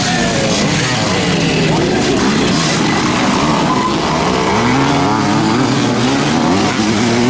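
Several classic motocross motorcycle engines revving on track, their pitch repeatedly rising and falling as the riders accelerate and back off.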